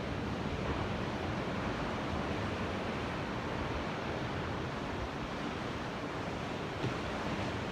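Ocean surf washing steadily.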